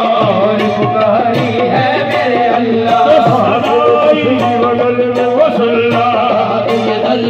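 Qawwali music performed live: a singing voice over sustained harmonium notes and regular tabla beats.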